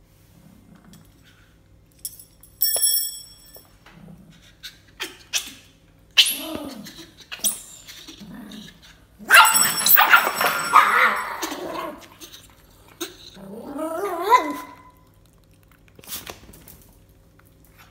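Small brown poodle yelping and whining in several short outbursts, the loudest about halfway through, as a baby monkey grabs at its fur.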